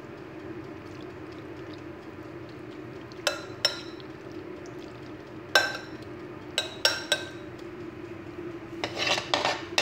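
A metal utensil clinking against a glass baking dish while stirring macaroni in béchamel sauce: scattered sharp, ringing clinks, with a quicker run of them near the end. A steady low hum runs underneath.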